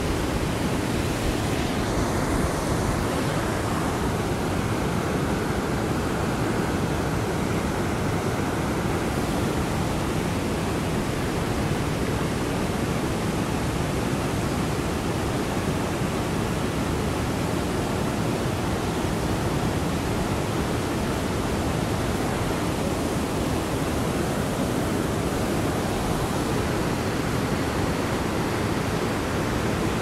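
Fast mountain river rushing through whitewater rapids: a steady, unbroken rush of churning water, heaviest in the low range.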